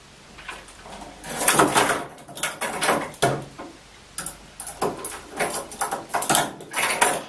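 Steel handcuffs being handled, with metal clattering and scraping in several bursts of short knocks.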